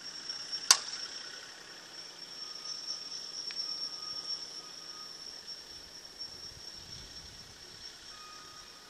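A single sharp, loud crack about a second in: a Resmondo slowpitch softball bat hitting a softball off a pop toss. A steady high-pitched tone runs underneath.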